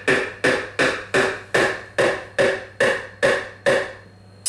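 A spoon rapped again and again against the rim of a mixing bowl to knock off cream cheese, about ten sharp ringing taps at an even pace of two or three a second, stopping shortly before the end.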